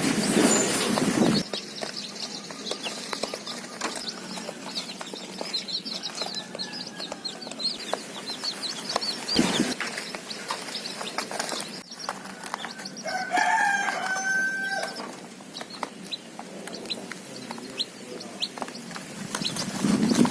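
Baby chicks peeping: many short, high peeps. A louder, lower-pitched chicken call lasts about two seconds a little past the middle. A burst of rustling noise opens it.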